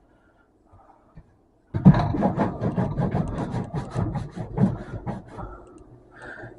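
A rag scrubbing a microwave's surface in quick back-and-forth rubbing strokes, starting a little under two seconds in and tailing off near the end.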